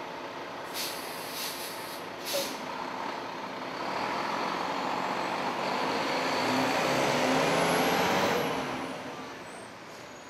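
Garbage truck's air brakes letting off in a few short hisses, then its diesel engine pulling away and driving past, the engine note rising as it gets louder, then fading away near the end.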